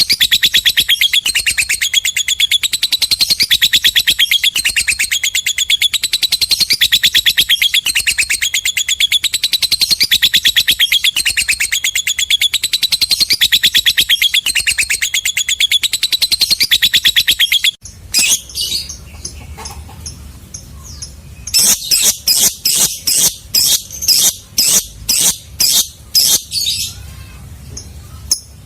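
Lovebird chattering in one long, very fast unbroken trill of shrill notes (the 'ngekek panjang' long chatter). About two-thirds of the way in it stops abruptly and gives way to separate sharp chirps, roughly three a second.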